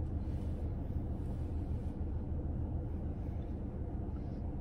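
Steady low hum inside a car cabin, with no sudden sounds.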